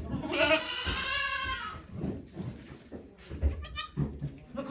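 Goat bleating: one long, wavering bleat beginning just after the start, then another starting near the end.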